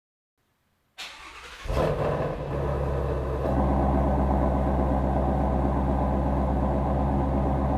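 Ford Shelby GT350's 5.2-litre flat-plane-crank V8 cranked by the starter about a second in, catching with a brief rev flare and settling into a steady idle.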